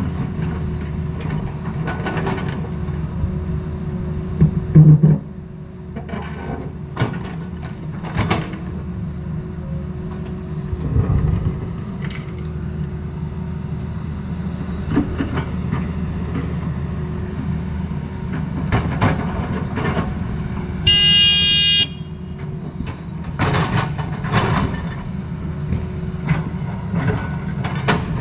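Tata Hitachi crawler excavator's diesel engine running steadily as it works broken rock, with scattered knocks and clatter of stones against the bucket. There is a brief loud swell about five seconds in, and a high-pitched tone lasting about a second near three quarters of the way through.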